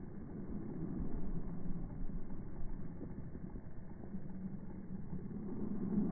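Low, muffled steady rumble of background noise, with no distinct calls, clicks or other events standing out.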